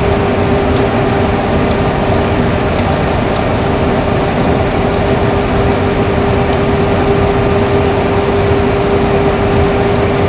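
Steady flight-deck background noise of a Boeing 737 Classic cockpit: an even rush of fan and air noise with a constant mid-pitched hum, and a few faint clicks of panel controls early on.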